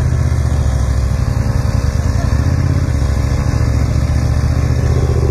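Motorcycle engine running steadily at low revs, a loud, even low engine note.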